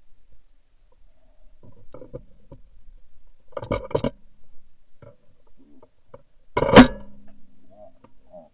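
Geese calling in short honks, with a cluster of calls about halfway through. A single loud shotgun shot comes about two-thirds of the way in, followed by more goose calls.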